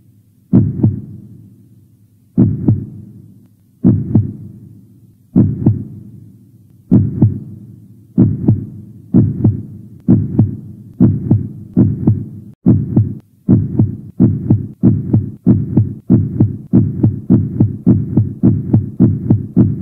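Deep heartbeat-like double thumps, each one dying away. They come about one every one and a half seconds at first and speed up steadily to about two a second near the end.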